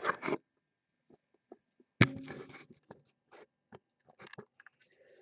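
Handling noise from boxes of trading cards on a table: a short rustle at the start, a sharp knock about two seconds in, then scattered light clicks and rustles.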